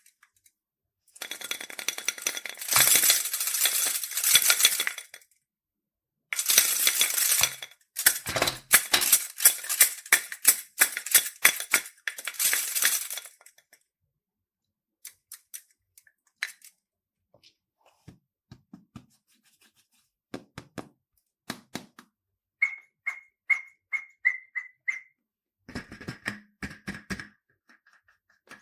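Slime being squished and worked by hand, making dense crackling and popping in two long spells, then scattered sticky clicks. Near the end there is a quick run of high squeaky chirps.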